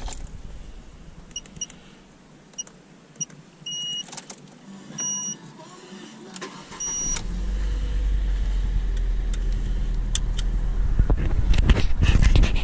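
Car dashboard chimes and beeps, then the car's engine starts about seven seconds in and settles into a steady idle.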